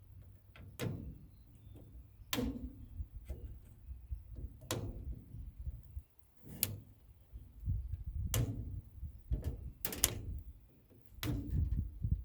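Wire cutters snipping through a small furnace's wiring: a sharp snip every second or two, about seven in all, with low handling noise in between.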